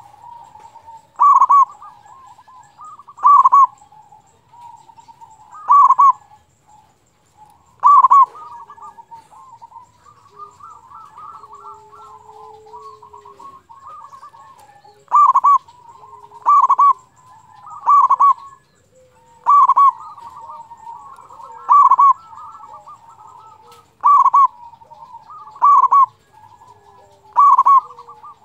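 Zebra dove (local perkutut) singing: a loud short cooing call every one to two seconds, with softer rapid trilling notes at the same pitch in between. The loud calls pause for several seconds in the middle while the soft trilling goes on.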